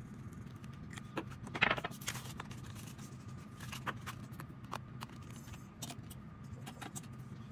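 Paper sheets and banknotes rustling and sliding on a tabletop as hands handle and gather them, with a few small taps and clicks. The loudest rustle comes about two seconds in, over a steady low hum.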